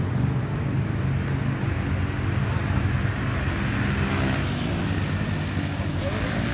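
Steady road traffic with a motor vehicle engine running close by, a continuous low hum. A high hiss comes in about two-thirds of the way through and lasts a second or so.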